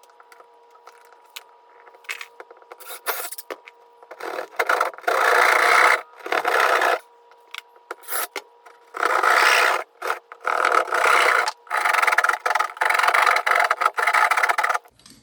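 Drywall being hand-sawn to cut a square hole in the wall: faint scattered scratches for the first few seconds, then rasping saw strokes in repeated bursts of about a second each.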